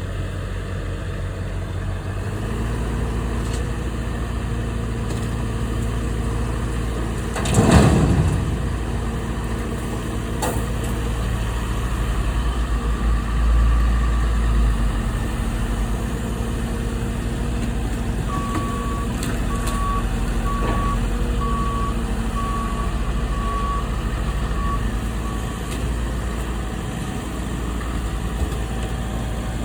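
Heavy machinery's engine running steadily, with one loud crash about eight seconds in. Past the middle, a reversing alarm beeps about once a second for several seconds.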